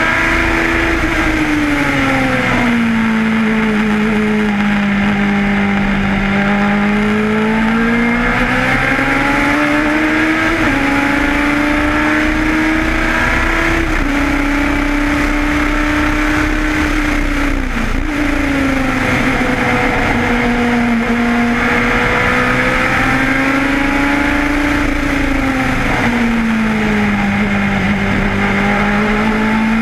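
Lotus 91 Formula One car's Cosworth DFV V8 at racing speed, close up on the car itself. Its pitch drops about two seconds in, climbs again through gearchanges from around ten seconds, drops near twenty seconds and again shortly before the end as the car brakes and accelerates through corners.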